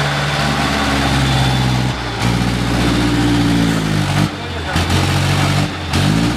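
Dump truck engine running under load, its pitch dipping twice in the second half and climbing back up each time as it is revved.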